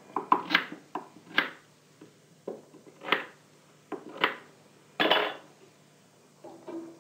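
Kitchen knife cutting peeled potatoes and knocking against the countertop: a string of separate sharp knocks and clicks, with a longer clatter about five seconds in.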